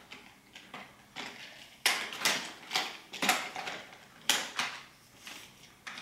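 Plastic scrub-brush rollers being handled and pushed into the brush housing of a Hoover FloorMate Deluxe hard-floor cleaner: a string of about eight sharp, irregular plastic clicks and knocks, starting about two seconds in, as the brushes snap into place.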